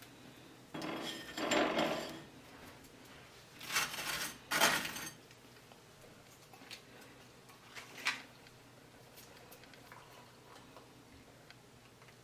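Table knife scraping margarine across toast, in two stretches of rough strokes, followed by a few light clicks of kitchenware.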